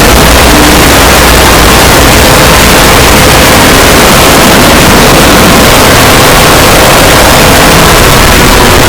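Very loud, heavily distorted steady noise.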